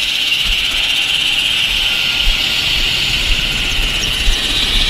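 Leonardo AW139 twin-turboshaft helicopter running at power, a steady loud rushing noise from its engines and rotor heard from a camera on the outside of the fuselage, with irregular low thumps of wind buffeting the microphone.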